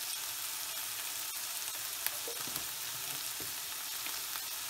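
Sliced onions frying in sunflower oil in a non-stick pan, a steady sizzling hiss as they soften, with a few faint clicks.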